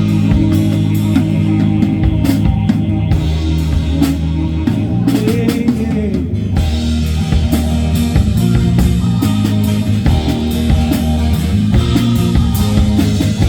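Rock band playing an instrumental passage: drum kit hits and fills over guitar, with no vocals, building into a fuller band sound about halfway through.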